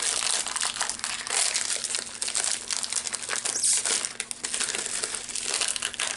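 Small plastic snack bag crinkling with dense, crackly rustles as it is squeezed and pulled at to tear it open by hand.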